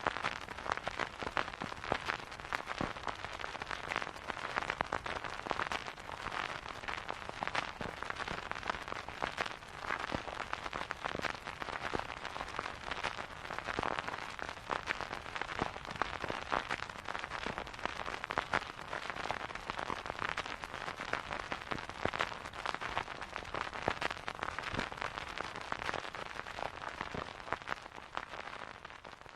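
Vinyl record surface noise: a dense, steady crackle of small pops and clicks over a soft hiss, easing off slightly near the end.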